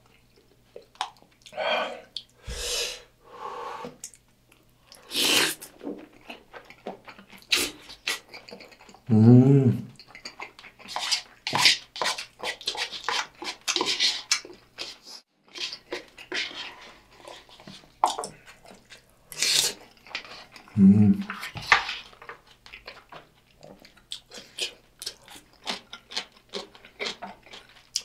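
Close-miked chewing of a mouthful of gyudon (beef and rice with kimchi), with wet mouth noises and irregular crackling, and the spoon scraping the paper bowl. A short hummed 'mm' from the eater comes twice, about 9 and 21 seconds in.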